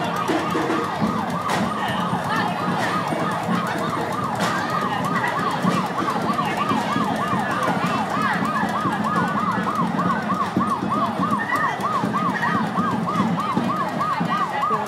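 Electronic siren in a fast yelp, its pitch rising and falling about four times a second.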